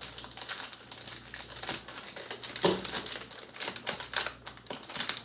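Plastic packaging rustling and crinkling in quick, irregular bursts as a parcel is handled and opened, with one sharper knock a little over two and a half seconds in.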